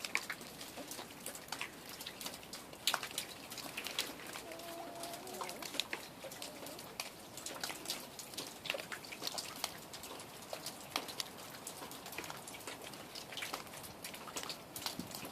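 A sleeping puppy snoring, a soft crackly sound of many small irregular clicks, with a brief squeak about four and a half seconds in.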